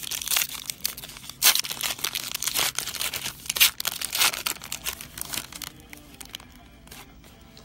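Baseball trading card packaging, box and pack wrappers, being torn open and crinkled: a dense run of rustles and tears for about five seconds, then quieter handling.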